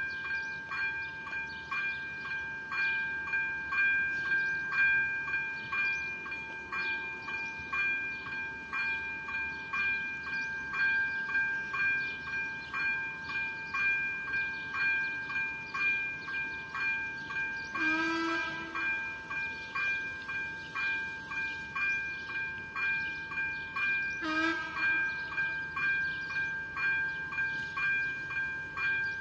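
Electronic warning bell of a Czech level crossing ringing steadily at about two strokes a second: the crossing is active, warning of an approaching train. Two short horn toots sound about two-thirds of the way through and again near the end.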